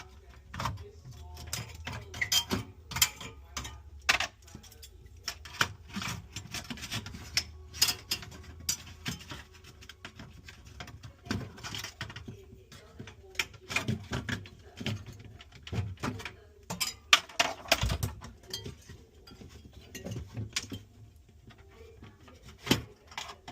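Parts being handled during a refrigerator repair: irregular clicks, taps and rubbing, with a heavier knock about two-thirds of the way through and a faint steady hum underneath.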